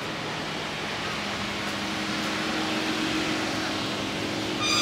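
Steady mechanical hum with a low drone, over a broad outdoor rush of noise that grows slightly louder. A brief high ringing tone comes near the end.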